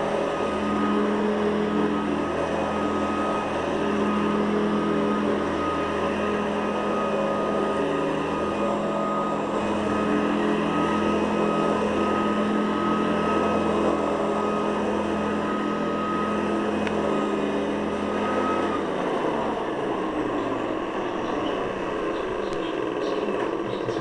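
Hoover Guardsman commercial upright vacuum cleaner running steadily with a motor hum and a high whine. About nineteen seconds in, the hum and whine drop away, leaving a rushing noise.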